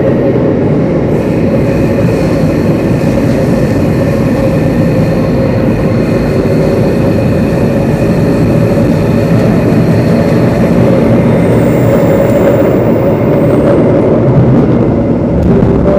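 Singapore MRT Downtown Line train running through a tunnel, heard from inside the carriage. It gives a loud, steady rumble from the wheels and running gear, with a faint steady whine over it.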